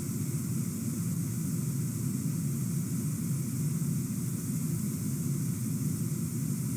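Steady background noise: a low rumble with a high hiss over it, with no distinct sounds or events.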